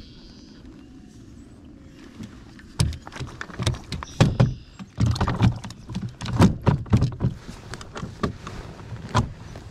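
Irregular knocks, clunks and rattles of a kayak pedal drive being handled and set down into its well in the plastic hull, starting about three seconds in and continuing, several hits a second.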